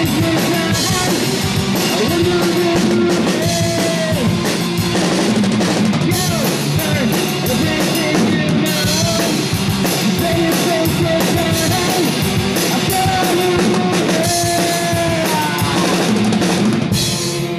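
Rock band playing a song: drum kit with cymbals, electric guitars and singing. Near the end the drums stop and a guitar chord rings on.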